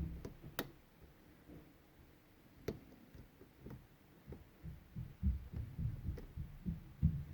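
Lock pick and tension wrench working the pins of a Medeco Biaxial 51S cylinder: a few sharp, faint metallic clicks, with soft low knocks coming more often in the second half.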